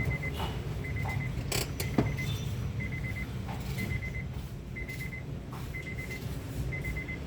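An electronic warning beeper sounds a quick run of about four high pips roughly once a second, over a steady low rumble. Two sharp clicks come about two seconds in.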